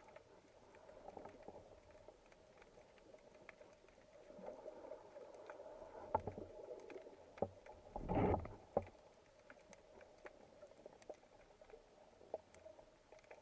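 Faint underwater ambience during a spearfishing dive: a steady low hum with scattered small clicks and crackles. About eight seconds in there is a short, louder rushing burst, then a smaller one.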